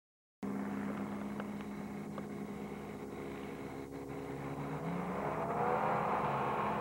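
Two cars accelerating hard side by side, a Ford Mustang with a swapped-in 5.0 V8 and a V6 Pontiac Firebird. The engine note climbs in pitch and grows louder from about halfway as they draw nearer. The sound cuts in about half a second in.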